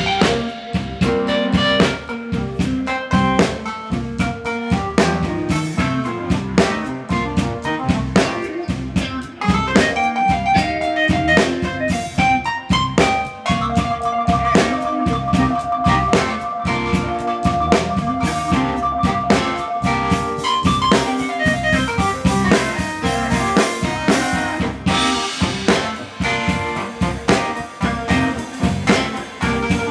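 Live band playing an instrumental passage: drum kit, electric keyboard, saxophone and electric guitar. About halfway through, a long held two-note chord lasts some six seconds over the beat.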